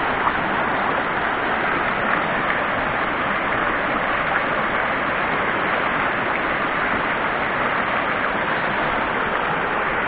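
Mountain stream rushing over boulders in white-water rapids, a steady, unbroken rush of water.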